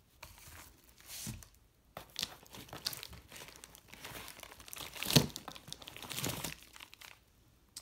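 Crinkling and rustling of firework packaging as cakes are shifted and pulled from the assortment box, with one sharper crackle about five seconds in.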